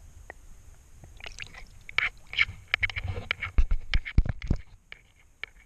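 Handling noise from a GoPro in its waterproof housing as it is moved through pond water and lifted out: a quick run of clicks, knocks and water sloshing, with heavy thumps about three and a half to four and a half seconds in, then a few scattered clicks.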